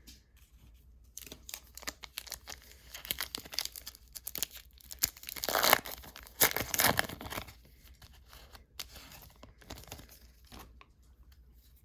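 A trading card pack's foil wrapper being torn open and crinkled: irregular rustles and rips, loudest about six to seven seconds in, then dying down.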